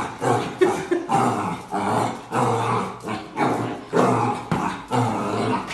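A dog vocalising over and over in short pitched calls, about two a second, a mix of growl-like grumbles and barks.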